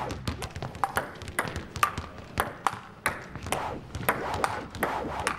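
Balls bouncing in a sports hall: a quick, irregular string of sharp knocks and pings.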